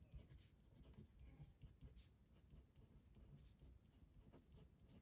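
Faint scratching of a pen writing block capitals on a sheet of paper, in short irregular strokes.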